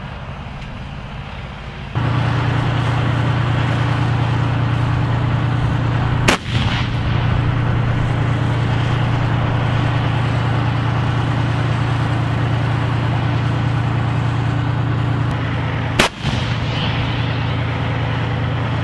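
Tank engine running loudly as the tank drives past, starting about two seconds in. Over it come two single heavy gun blasts about ten seconds apart.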